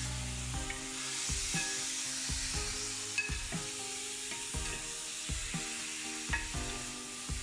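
Raw chicken pieces sizzling in hot oil and spiced masala in a metal pot. A metal spatula stirs them, scraping against the pan again and again.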